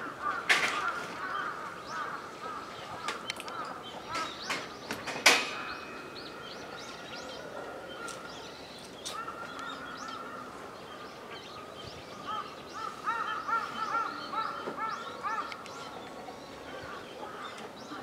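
Birds calling around a pond: runs of short, repeated calls, busiest near the start and again about thirteen to fifteen seconds in. Several sharp clicks fall in the first six seconds, the loudest about five seconds in.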